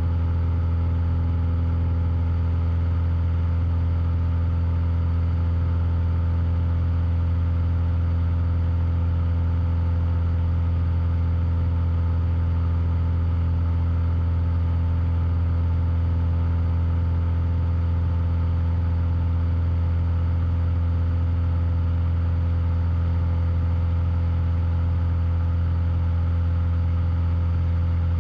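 Cessna 172's piston engine and propeller running steadily in flight: a constant low drone whose pitch and level do not change.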